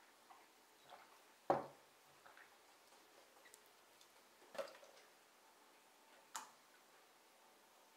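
A few scattered sharp clicks and light taps over near silence. The three loudest come about one and a half, four and a half and six and a half seconds in.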